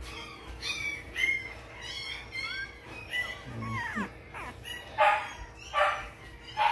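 One-week-old XL American Bully puppies squeaking and whining over and over in short, high, falling squeaks, with two louder cries about five and six seconds in.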